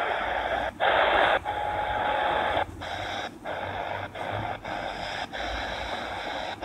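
Tecsun PL-398MP shortwave radio being tuned between stations on the 60-metre band: static hiss through its speaker, cut by short silences each time the DSP tuner steps to a new frequency. A faint steady tone sounds for about a second.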